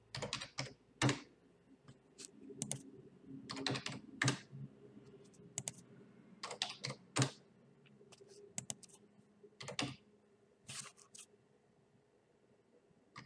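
Computer keyboard keystrokes: scattered key presses, some in quick runs of two to four, with pauses between, as new numbers are typed in. A faint steady hum lies underneath.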